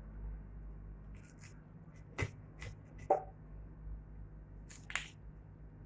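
Pulp and fibres being scraped out of a halved lemon's peel by hand: a handful of short scrapes and clicks, the loudest about three seconds in.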